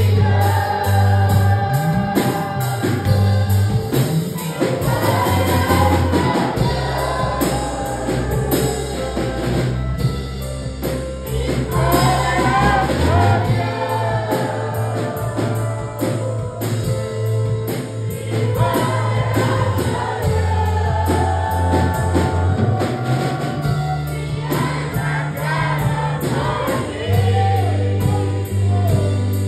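Two girls singing a worship song together into microphones over backing music, with a sustained bass line and light, regular drum ticks.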